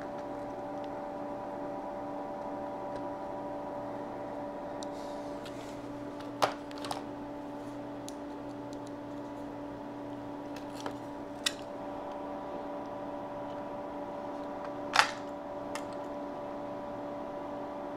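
Powered-on Atari 1050 floppy drive humming steadily, with a few sharp clicks; the loudest comes about six and a half seconds in and again near the end.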